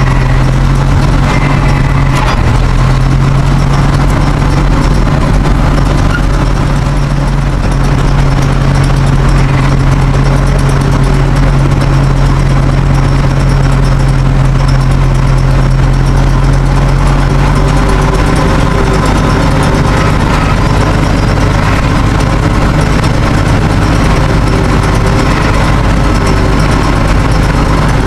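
Caterpillar D9 bulldozer's diesel engine running steadily and loud while towing a pull scraper. Its note changes and turns rougher about two-thirds of the way through.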